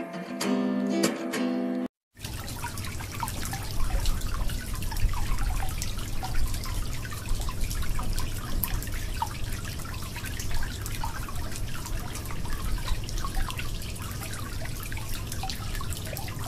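Guitar music for the first two seconds, then after a cut a thin stream of water splashing steadily into a shallow steel bowl of water as it fills, with fine bubbling and crackling.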